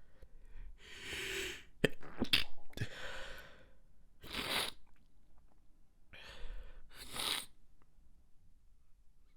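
A fit of stifled sneezes: a breath in, then a tight cluster of sharp, held-in sneezes about two seconds in, followed by three more spaced a second or two apart.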